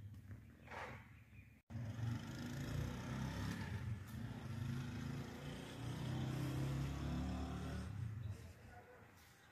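A steady low rumble starts abruptly about two seconds in and eases off near the end.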